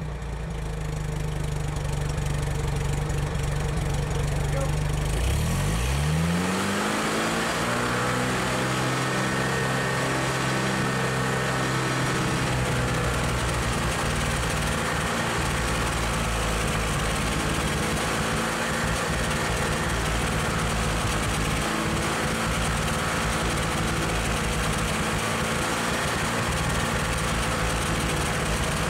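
1971 International Scout 800B engine running at the tailpipe: it idles, revs up quickly about six seconds in, and then holds a fast, steady speed, as the engine is being decarboned.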